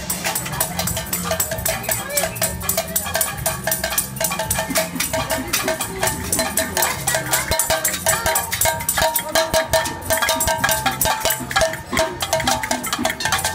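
Marchers banging on metal pots and pan lids: a continuous, dense clatter of metal strikes with a ringing tone.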